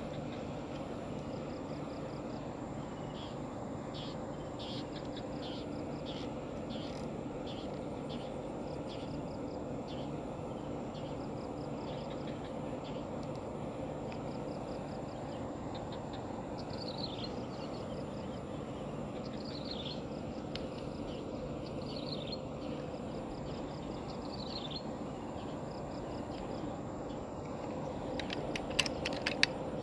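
A small bird calling over steady low background noise. First comes a run of short, quick chirps, then a call falling in pitch, repeated four times at intervals of about two to three seconds. A few sharp clicks near the end.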